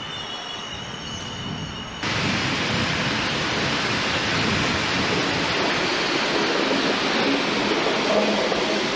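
A train on the station tracks with a high, steady wheel squeal. After a cut about two seconds in, the louder, even rumble of a DB Class 141 electric locomotive and its coaches rolling past close by.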